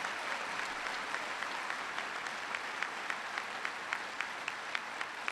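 Audience applauding. The clapping slowly thins out, with single claps standing out near the end.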